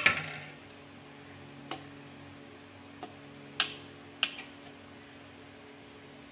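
A metal ladle clinking against an aluminium pot of fish curry as pieces of fish are scooped and lifted: a sharp clink at the start, then four light taps spread over the next few seconds, over a faint steady hum.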